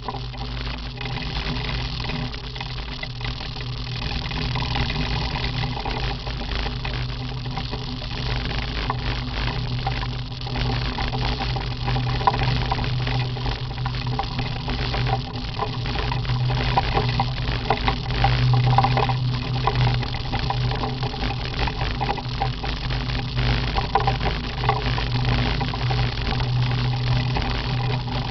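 Motorcycle engine running steadily under way, with a constant rush of wind and road noise from the tyres on gravel.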